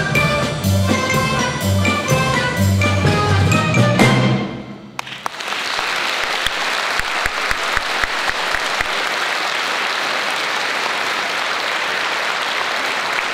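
A children's folk orchestra of button accordions, domras and balalaikas, with bass guitar, drum kit and xylophone, plays the last bars of a piece and ends on a final chord about four seconds in. The audience then breaks into steady applause.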